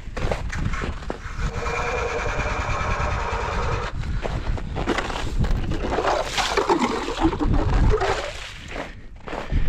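Hand-cranked ice auger boring through lake ice: the blades grind and scrape as they cut, with a steady squeal from about one and a half to four seconds in.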